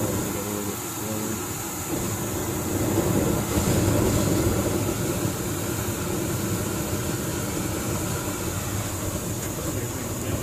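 Compressed air blowing powdered dry fuel out of a copper line into a propane torch flame, the dust burning as a large open flame with a steady rush of air and fire, louder about three to four seconds in.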